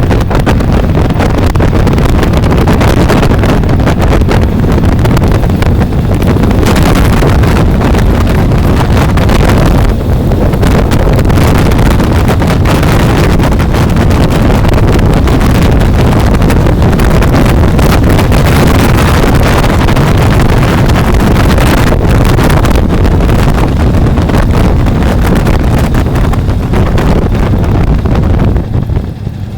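Loud, steady wind buffeting on the microphone of a moving bike, a heavy rumble with no clear engine note. It eases and turns uneven near the end.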